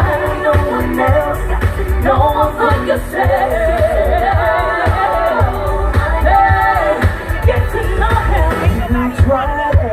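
Gospel song: a voice singing a wordless, held melody over a steady drum beat.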